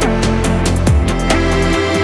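Background electronic music with a heavy bass line and a regular drum beat; the bass drops out near the end.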